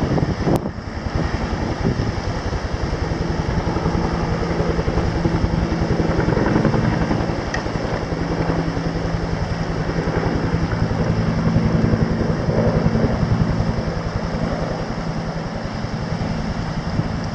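Rescue helicopter running steadily and loudly, its rotor beat and turbine whine continuous.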